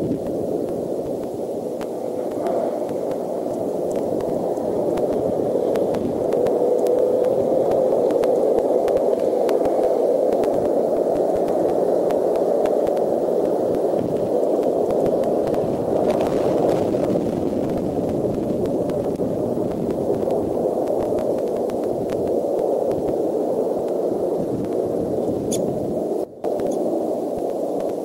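Steady rushing noise picked up by the nest camera's microphone, centred low in pitch, with no distinct events; it cuts out for an instant near the end.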